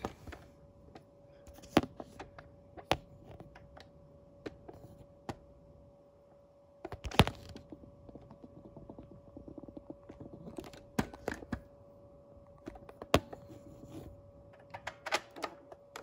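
Scattered clicks and knocks from handling the plastic Nerf blaster and the phone, with one sharp knock about seven seconds in the loudest, over a faint steady hum.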